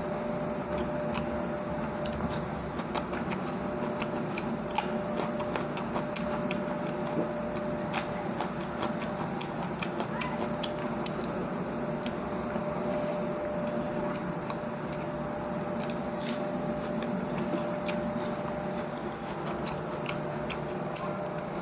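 Close-up mouth sounds of someone eating rice and fish curry by hand: irregular wet smacks and clicks of chewing and lips. A steady hum sits underneath.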